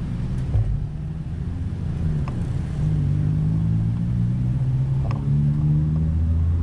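Road traffic: motor vehicle engines running, with a low engine hum that grows louder about three seconds in as a vehicle moves off nearby, and a couple of faint clicks.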